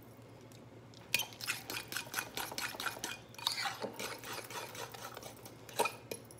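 A metal spoon scraping and clinking in a ceramic mixing bowl of deviled-egg yolk filling, and the bowl shifted across a granite countertop: a quick run of clicks and scrapes that starts about a second in.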